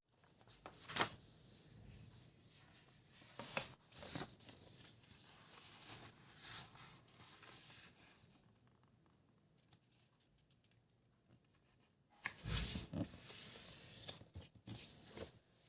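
Handling noises of hands working with craft materials: short scattered tearing and scraping strokes, and a longer tearing stretch about twelve seconds in.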